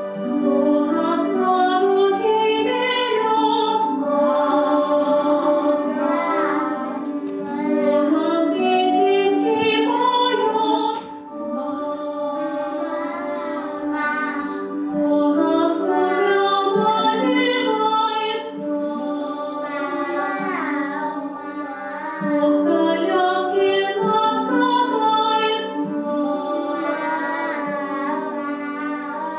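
Young children and a woman singing a song together over musical accompaniment.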